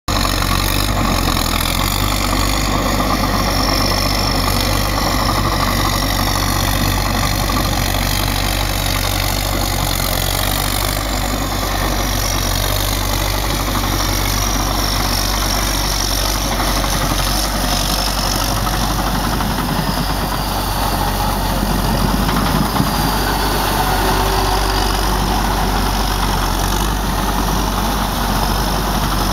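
Engine of a home-built Thai rotary-tiller tractor running steadily.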